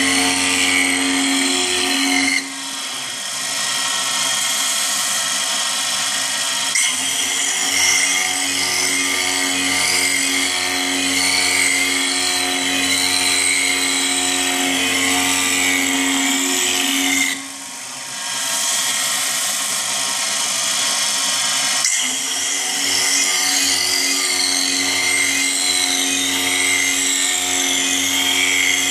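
CNC milling machine's end mill cutting a circular pocket in an aluminium plate by circular interpolation: a steady, high-pitched cutting whine over the spindle's hum. The cutting noise eases off briefly twice, about two seconds in and again about seventeen seconds in, then builds back up.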